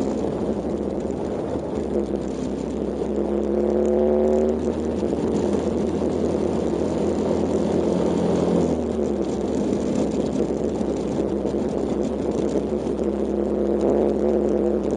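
Kawasaki KLX125's single-cylinder four-stroke engine running as the bike is ridden. Its pitch rises a few seconds in, drops about two-thirds of the way through, then climbs again near the end.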